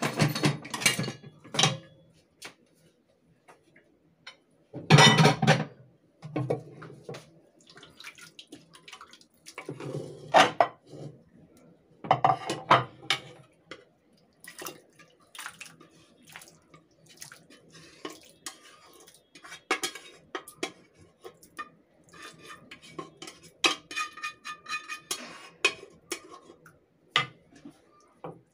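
Metal pot and kitchen utensils clattering, clinking and scraping against a ceramic serving platter as stew is poured out and spread. The loudest clatters come about 5 seconds in and again around 10 to 13 seconds, followed by lighter, quicker clicking.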